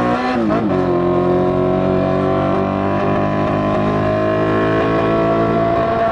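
Yamaha FZ6 inline-four engine running steadily, with a strong higher tone over the engine note that slowly rises and a brief dip in pitch just after the start. The rider calls it an ugly noise, one that came back after the bike was washed.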